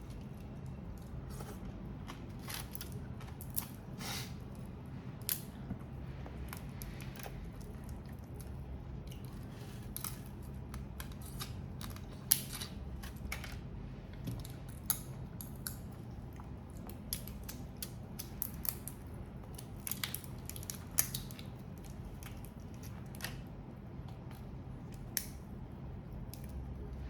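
Irregular sharp clicks and crackles of grilled prawn and crab shells being peeled and cracked by hand while eating, over a faint steady low hum.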